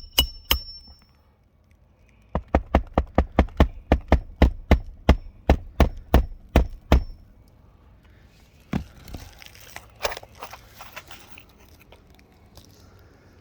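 Hammer striking a roof snake to shear the nails under asphalt shingles: a few ringing metal hits, then a fast, even run of sharp blows about four a second, then a few softer knocks and scrapes.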